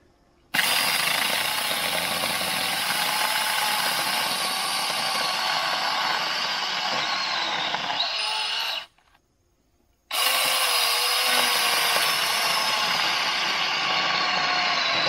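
Battery-powered 6-inch mini chainsaw running as it cuts through a thick log at about the limit of its bar. The motor stops for about a second after some nine seconds, then starts again and cuts on.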